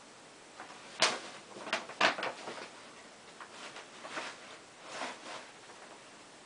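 Stiff paper shopping bag crackling and rustling in irregular bursts as a cat pushes into it and thrashes around, with two sharp loud crackles about one and two seconds in and softer rustles after.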